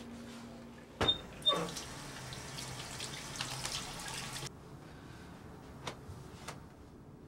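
Two sharp knocks, then a bathroom sink tap running over washing hands for about three seconds before the water stops abruptly. Two light clicks follow.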